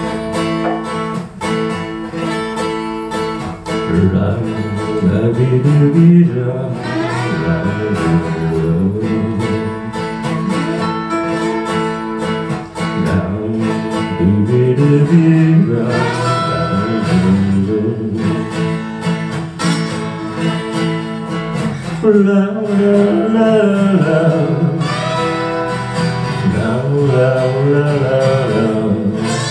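Acoustic guitar playing a song, with a voice singing over it from about four seconds in.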